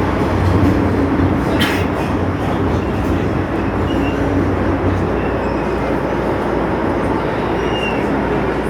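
Interior running noise of an MTR M-train: a steady rumble with a low hum that fades about five seconds in. There is a single sharp knock from the running gear about a second and a half in, and a few faint brief squeaks.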